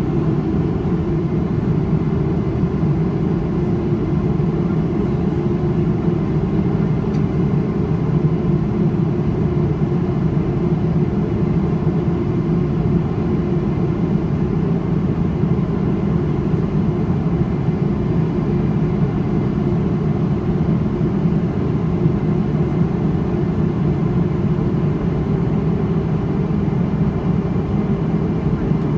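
Steady low roar of a Boeing 777-300ER's GE90-115B turbofan engines heard inside the cabin over the wing, as the airliner climbs out after takeoff.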